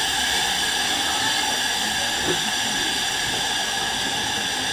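Steady hiss with several held high tones from a passenger train at a station stop, with no clear wheel, brake or horn sounds.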